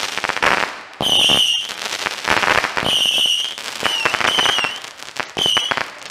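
200-shot missile base firing: small whistling rockets launch one after another, each a short high whistle, about once a second, amid rapid crackling pops.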